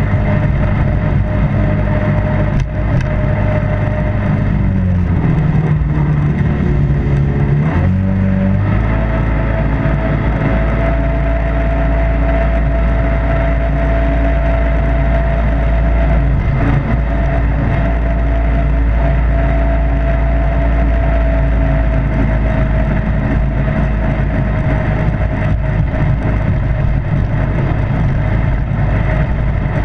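Jet boat engine running under way on a shallow river. It eases off about five seconds in and picks back up to a steady pace a few seconds later.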